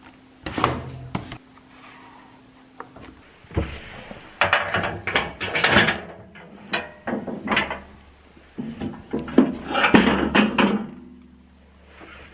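A series of knocks, clicks and rattling handling noises, bunched together about four seconds in and again about nine seconds in.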